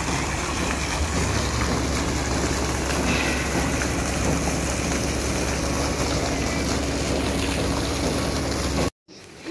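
A fountain's single water jet splashing steadily into its round stone basin, with a low rumble underneath. The sound cuts off abruptly near the end.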